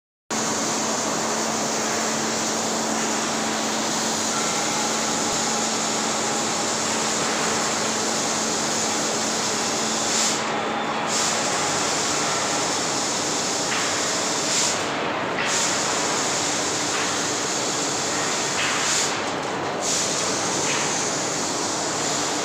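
Steady din of steel rolling mill machinery at the cooling bed and roller table, with a faint steady hum until about halfway and a slight swell every four to five seconds.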